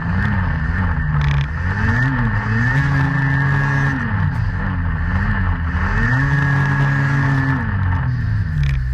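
Snowmobile engine revving up and down again and again, with a couple of longer holds at high revs.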